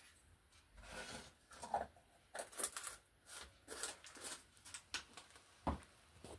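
Small plastic paint pots being handled on a cutting mat: a lid fitted back on and jars picked up and moved, a run of short scrapes and clicks with one sharper knock about five and a half seconds in.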